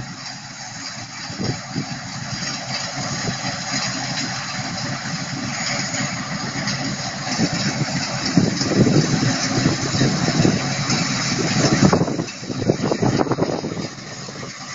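Deutz-Fahr M1300 combine harvester running while it harvests soybeans, growing louder as it comes closer, then dropping off sharply about twelve seconds in.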